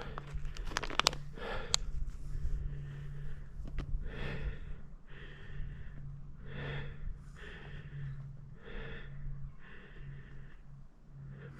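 A hiker breathing hard and fast, about one breath a second, winded from a steep climb at high altitude. A few sharp clicks in the first two seconds.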